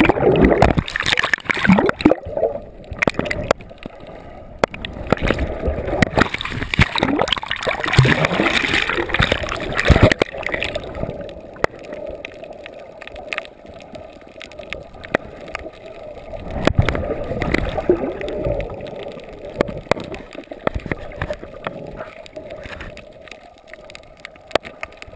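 Water gurgling and sloshing as heard through a camera held just underwater, with choppy surges of bubbles and turbulence for the first ten seconds or so, then calmer and quieter.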